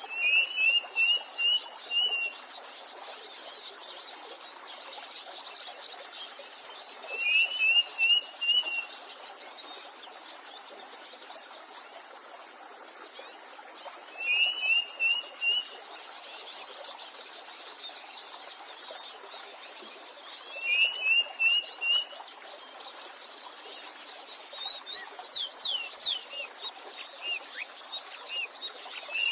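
A songbird repeating a short phrase of five or six quick rising notes, about once every seven seconds, over the steady hiss of a stream. Near the end another bird gives a few fast up-and-down whistled sweeps.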